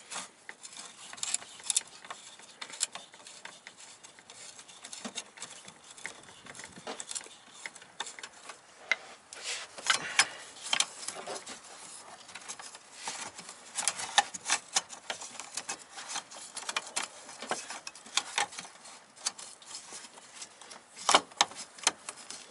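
Hands working a fuel filter into its loosened metal mounting clamp under a car: scattered small clicks, scrapes and light knocks of metal and plastic, with louder clicks about ten seconds in and near the end.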